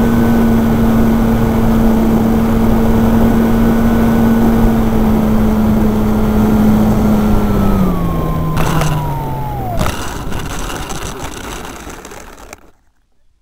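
Onboard sound of a radio-controlled P-51 Mustang model plane: its motor and propeller run with a steady hum under rushing wind. About eight seconds in the pitch falls away as the motor winds down for landing, with two knocks as the plane touches down, before the sound fades out.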